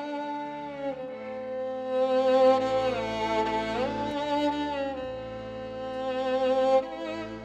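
Violin playing a slow melody of long held notes, sliding up into a note at the start and sliding down then up again in the middle. Low sustained bass notes come in beneath it about a second in and change pitch a few times.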